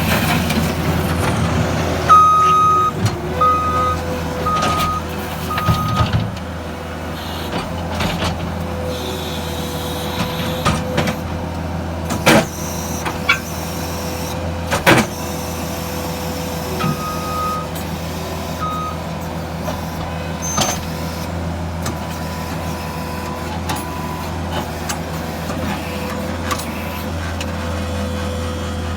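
2016 Case SR240 skid steer's 74 hp turbo diesel running steadily as the machine is driven. Its backup alarm beeps four times a few seconds in and three more times later, and two sharp knocks come near the middle.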